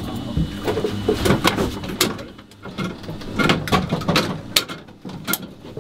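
A string of sharp clicks and knocks from equipment being handled in a small aircraft cockpit, irregular and close to the microphone.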